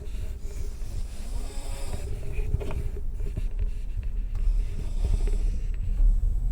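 A person snoring in a railway sleeping carriage, over the steady low rumble of the carriage, with a few short clicks.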